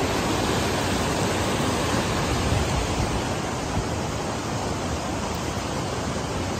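Steady rush of fast-flowing river water running over rocks.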